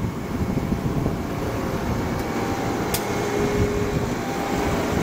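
Amtrak passenger train passing close by at speed, its steel wheels rumbling steadily over the rails, with a faint thin squeal in the middle and one sharp click about three seconds in.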